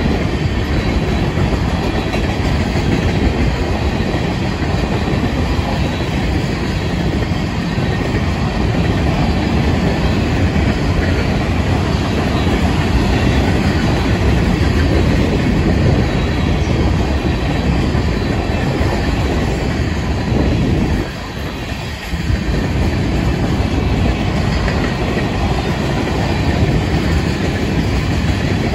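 Florida East Coast Railway freight train's cars rolling past at close range: a steady rumble with the clatter of wheels over the rails. It dips briefly about three-quarters of the way through.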